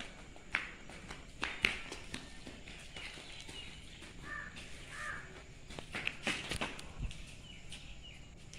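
Scattered footsteps and scuffs on stone paving, with two short bird calls about halfway through and a few faint chirps.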